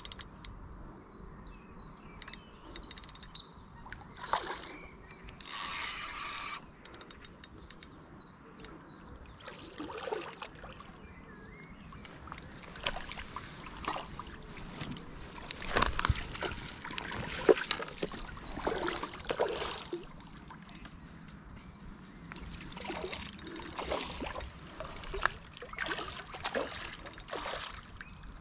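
Intermittent clicking and rattling of a spinning fishing reel being wound and handled, with occasional splashes on the water.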